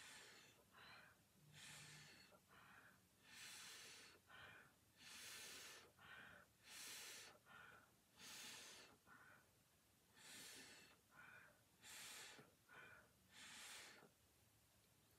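Faint, gentle puffs of breath blown through a drinking straw onto wet acrylic paint, about nine puffs roughly every one and a half to two seconds, each followed by a shorter breath in. The blowing spreads the pooled paint and cell activator into a bloom.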